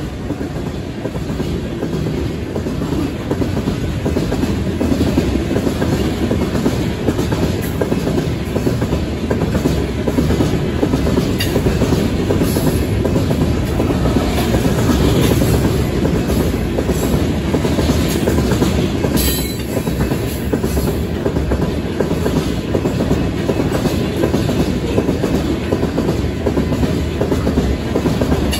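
Covered hopper cars of a freight train passing at speed: a loud, steady rumble of steel wheels on rail with clickety-clack over the rail joints, and a few short, sharper noises around the middle.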